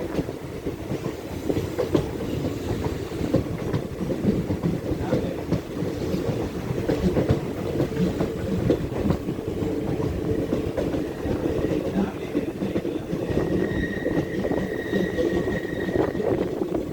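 Passenger train running along the track, a steady rumble and rattle of the carriage with wheels clacking over the rail joints. Near the end a thin, high, steady squeal rises above the rumble for a couple of seconds.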